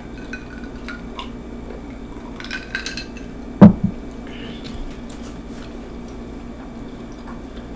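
A few light clicks, then a drinking glass set down on the table with a loud sharp knock a little after halfway, followed by a smaller second knock and faint small clicks of tableware.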